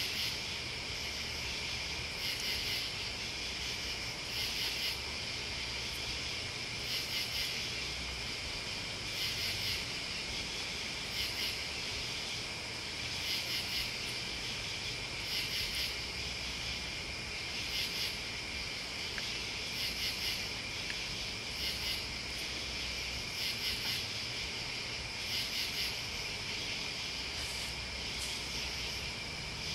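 Night insect chorus of crickets and other bugs: a steady high trill, with louder pulsed chirping from a higher-pitched caller about every two seconds.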